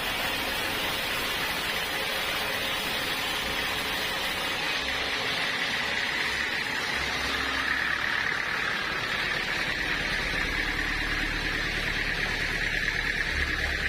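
Sawmill saw cutting through an acacia log: a steady mechanical rush with a high whine that grows stronger about halfway through.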